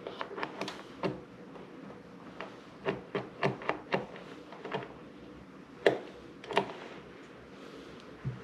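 Small metal and plastic parts of a Grohe shower trim being fitted by hand onto the valve stem: a run of irregular light clicks and taps, the sharpest about six seconds in.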